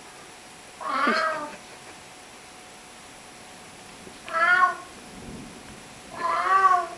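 Three separate meows, each well under a second long: one about a second in, one around four seconds in, and one near the end.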